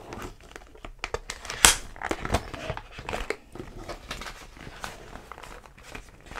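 Paper banknotes and plastic binder envelopes rustling and crinkling as they are handled and the binder's pages are turned, in short irregular rustles and clicks. A sharp snap about one and a half seconds in is the loudest sound.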